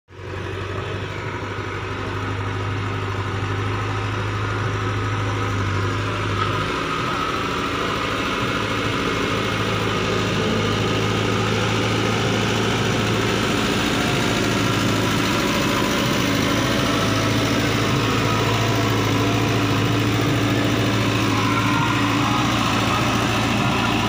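JCB 3DX backhoe loader's diesel engine running steadily under load as the machine drives forward pushing loose soil with its front loader bucket, grading a dirt road.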